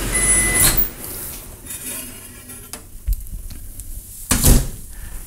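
Kitchen dishes and cookware clattering and knocking as they are handled, with the loudest clunk about four and a half seconds in. A steady hum with faint high tones stops about a second in.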